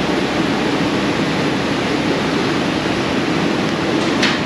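Steady, loud rushing noise with no rhythm, with one short sharp click about four seconds in.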